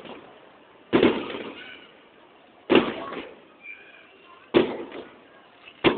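Fireworks going off: four sharp bangs at roughly two-second intervals, each trailing off in a short echo.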